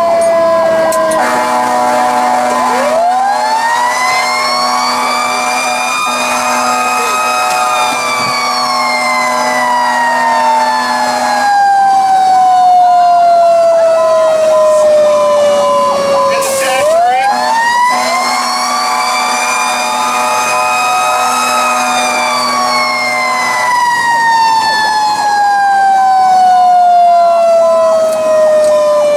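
A fire engine's Federal Q mechanical siren winds up twice, about 3 s and 17 s in, each time rising over a few seconds and then coasting slowly down in pitch. It is layered with a steady electronic Powercall siren tone that sounds for long stretches and drops out between about 11 and 18 s.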